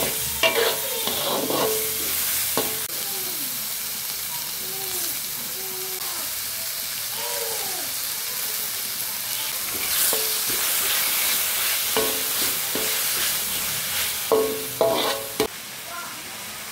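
Vegetables and chillies sizzling as they are stir-fried in a wok, with a steady frying hiss and a metal spatula scraping and clacking against the pan. Several sharp knocks of the spatula come near the end.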